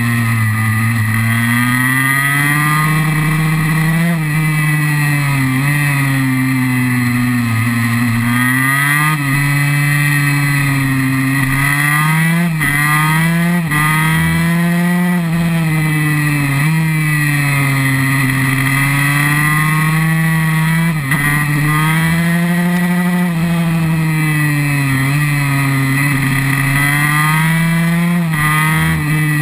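KTM SX 144 two-stroke single-cylinder engine, heard from on the bike at speed, its pitch climbing under throttle and falling off again in repeated waves, with a few sharp breaks in the note as the rider shifts or shuts the throttle.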